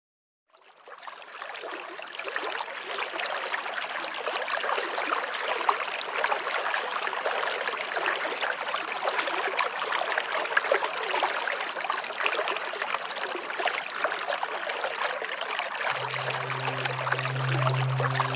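Steady running, trickling water that fades in about half a second in and carries on with a fine crackling splash. Near the end a low, sustained musical drone comes in under it.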